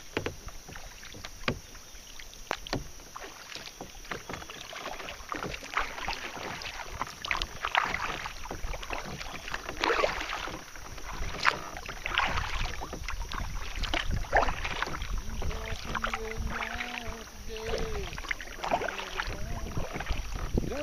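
Double-bladed kayak paddles dipping into the river and splashing, with water dripping off the blades in irregular strokes. A faint low pitched sound comes in briefly near the end.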